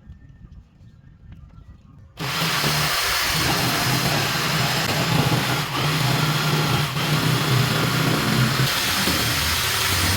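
A power tool switches on abruptly about two seconds in and runs steadily, a loud dense hiss over a low motor hum.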